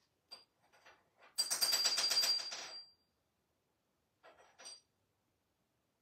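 African grey parrot calling: a few soft clicks, then about a second and a half of loud rapid rattling trill with a high whistle running through it, and two short chirps near the end.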